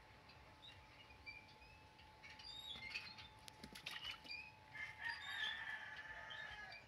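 Small birds chirping: many short, high calls overlapping, starting about two seconds in and stopping near the end. A few light clicks come about three to four seconds in.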